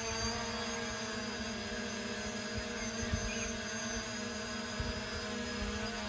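Parrot Anafi Ai quadcopter drone hovering, its propellers giving a steady, even hum at an unchanging pitch.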